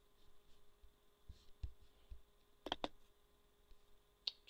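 A few faint computer mouse clicks over quiet room tone, the clearest a quick pair about two and a half seconds in and a single click near the end.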